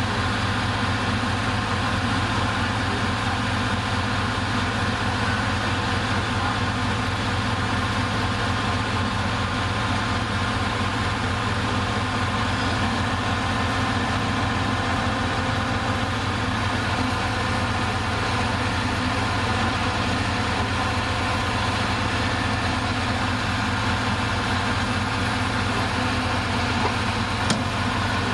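Bulldozer's diesel engine idling steadily, with one short sharp knock near the end.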